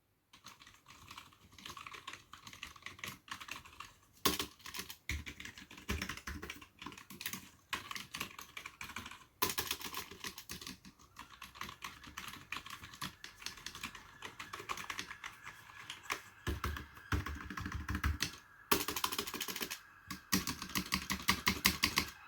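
Continuous typing on a Rii RK100 membrane keyboard with mechanical-feel keys: a stream of soft, irregular key clicks with occasional faster runs.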